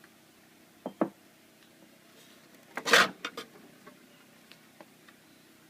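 Parts of a 1970s Superette vending machine being handled as it is taken apart: two quick clicks about a second in, then a short clatter of knocks around three seconds in.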